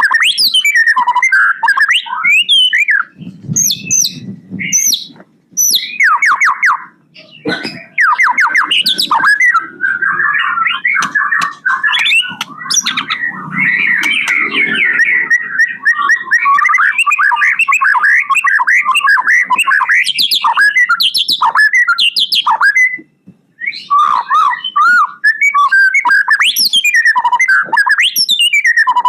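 Male white-rumped shama (murai batu) singing almost without pause: a fast, varied run of loud whistles, sliding notes and rapid trills, with two short breaks.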